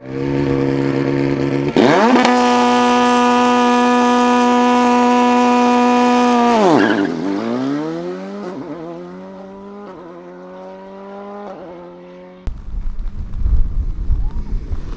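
Volkswagen Polo GTI R5's turbocharged four-cylinder rally engine, first held at a steady pitch that jumps higher about two seconds in and holds there. The revs then drop sharply and climb again in steps through quick upshifts. About twelve seconds in, the engine sound cuts off abruptly and gives way to a loud, rumbling noise.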